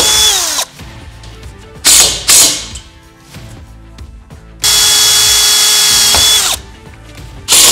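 Cordless drill boring a pilot hole into a steel ladder-rack upright. Its motor runs at a steady high whine and spins down, pitch falling, about half a second in, then runs again for about two seconds in the second half. Twice, a pair of short, loud sharp sounds follows a drill run; these are the loudest sounds.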